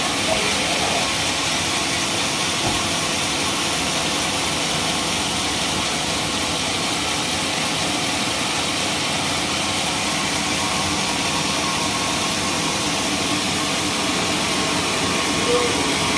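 Sawmill machine running steadily.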